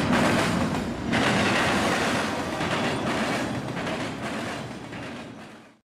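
Double-stack intermodal freight train rolling past at close range, its steel wheels clattering and clacking over the rails. The sound fades out near the end.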